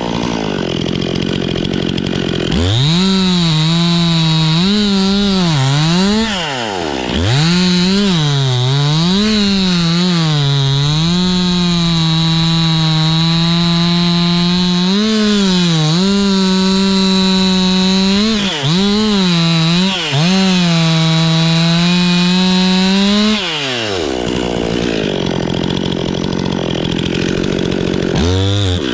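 Two-stroke chainsaw cutting oak. It revs up about three seconds in, its pitch sagging and recovering again and again as the chain bites under load, then holds at full throttle for several seconds. About 24 seconds in it drops back to idle, with one short blip of throttle near the end.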